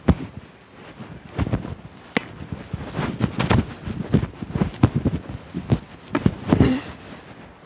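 An irregular run of knocks, clicks and rustling close to the microphone, from objects being handled or rummaged through right by the recording phone.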